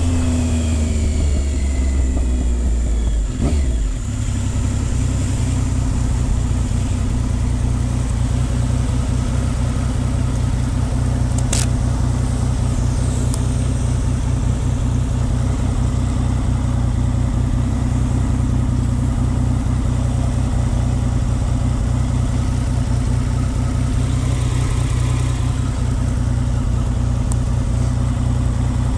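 Triumph Speed Triple 955i's three-cylinder engine running: its pitch falls over the first couple of seconds, dips briefly, then holds steady.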